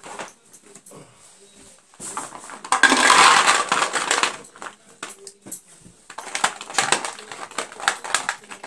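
Dry fruits and nuts being handled in dishes and containers: a loud, continuous rattle about three seconds in, like nuts poured into a container, then a run of small clicks and clinks.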